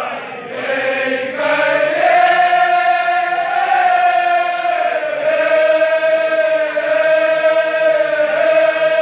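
Marsiya, a Kashmiri mourning elegy, chanted in long held notes, with a brief dip just after the start before the next note is drawn out for several seconds.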